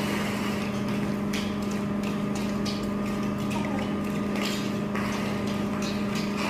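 Long-handled floor squeegees scraping in short, repeated strokes over a concrete floor coated with wet cement resurfacer, over a steady low machine hum.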